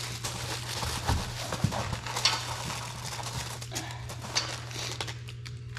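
Light knocks, clicks and rustling as a new all-aluminium radiator is handled and turned over, over a steady low hum.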